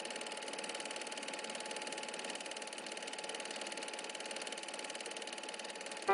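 Film projector running: a steady, fast mechanical clatter of the film being pulled through the gate.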